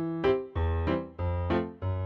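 Background music: a light tune of short notes, about three a second, over low bass notes.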